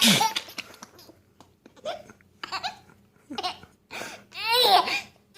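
Baby laughing hysterically in short bursts, building to a long, high-pitched peal about four and a half seconds in.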